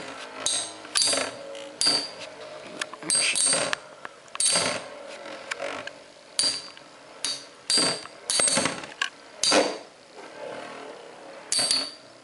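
Hell Kerbecs and Flame Byxis metal Beyblade tops spinning in a plastic stadium and striking each other again and again. Sharp clacks with a short metallic ring come at irregular intervals, roughly once or twice a second, over the quieter whir of the spinning tops.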